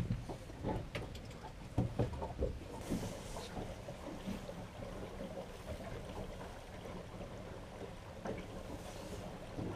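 Small open fishing boat afloat: a low steady hum under wind and water noise, with a few knocks on the boat in the first two and a half seconds.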